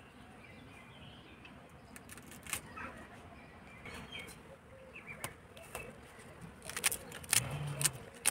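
Small birds chirping faintly and intermittently. Several sharp clicks come near the end as a knife cuts through kohlrabi stems and leaves.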